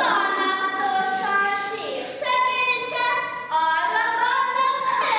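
A young girl singing solo without accompaniment, holding long notes with a few gliding ones in between.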